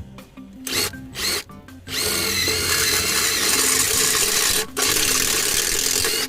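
Electric drill running in three short bursts, then a long steady run with a brief stop near the end, boring into a metal frying pan.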